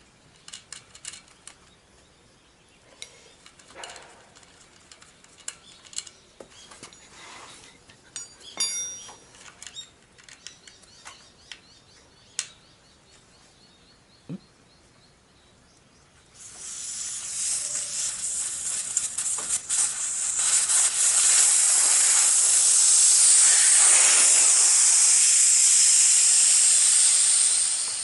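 Air hissing out of a motorcycle front tyre through its open valve as the old tyre is deflated: a steady hiss that starts suddenly about halfway in, grows louder, then drops away shortly before the end. Before it, light clicks and knocks of hands and tools on the wheel.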